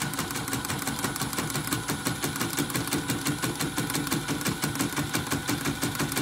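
CNY computerised embroidery machine stitching at speed: the needle bar and hook give a fast, even clatter, stitch after stitch, without a break. It runs on a newly replaced drive motor and stitches neatly, no longer skipping.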